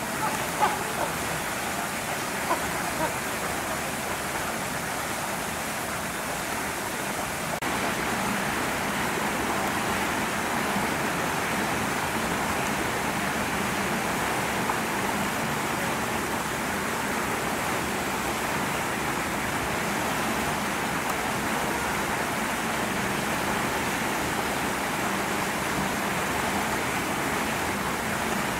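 Steady rushing noise, like rain or running water, with a few short sharp sounds in the first three seconds.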